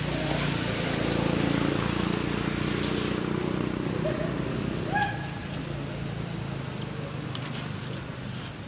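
A motor vehicle's engine running steadily off-screen, loudest in the first couple of seconds and fading after about five seconds. A few short high chirps come through about four and five seconds in.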